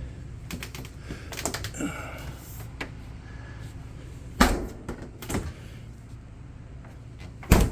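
A series of sharp clicks, then a few knocks: one strong knock about four and a half seconds in and the loudest near the end, as doors and latches are opened and shut. A steady low hum lies underneath.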